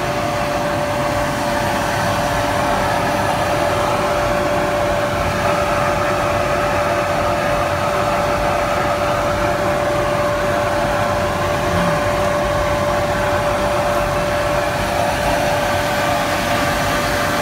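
Single-stage plastic compactor granulator machine running steadily: an even whirring mechanical noise with a constant mid-pitched whine.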